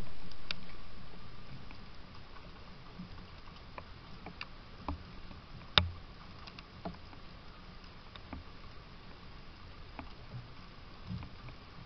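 Scattered small knocks and clicks, one louder about six seconds in, as gray squirrels clamber on and feed at a wooden peanut feeder and a hanging bird feeder, over a faint steady hum. A low rush fades away over the first two seconds.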